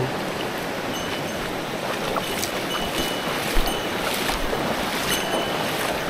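Rushing water of a mountain stream: a steady, even hiss, with a few faint clicks over it.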